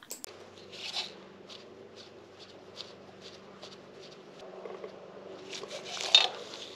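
Hand screwdriver turning the Phillips screws of a motorcycle carburetor's float bowl: faint regular ticks, about two or three a second, as the bit twists in the screw heads, with rubber-glove rustling that grows louder about six seconds in.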